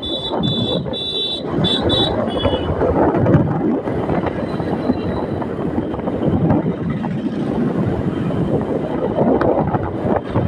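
Riding a small motorcycle through town traffic: wind gusting over the microphone with the bike's running and the road noise. For the first two and a half seconds or so, a high electronic beep repeats about twice a second.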